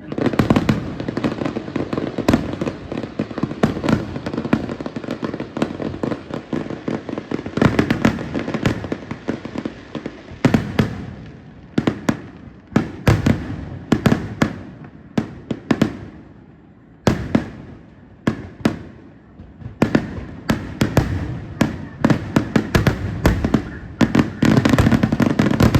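Aerial fireworks display: rapid volleys of bursting shells with sharp bangs and crackling, coming in dense barrages with short lulls between them and a heavy crackling barrage near the end.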